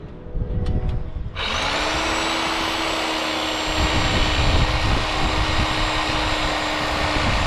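Reciprocating saw (Sawzall) with a pruning blade starts about a second and a half in and runs at a steady, constant speed, sawing through a tree branch. A few faint clicks come before it starts.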